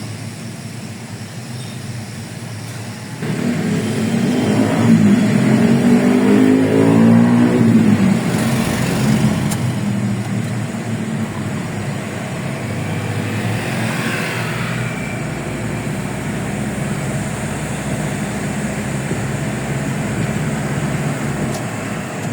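A motor vehicle's engine accelerating, its pitch rising for a few seconds after a jump in loudness about three seconds in, then running steadily with road noise.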